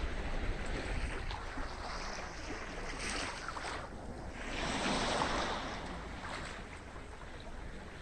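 Sea waves washing onto a beach, with two surges of surf about three and five seconds in, and a low rumble of wind on the microphone.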